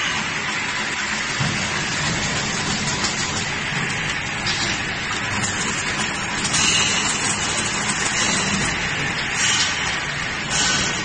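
Fully automatic single-wire chain link fence machine running, weaving wire into diamond mesh: a steady mechanical noise, with a few brief hissier surges about two-thirds of the way in and again near the end.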